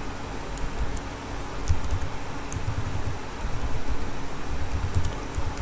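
Steady low rumble and hiss of room noise, with a few faint, sparse clicks from computer keys as a password is typed.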